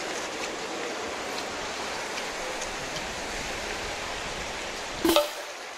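Steady hiss of sea waves washing over a rocky shore. A single brief, sharp sound stands out about five seconds in.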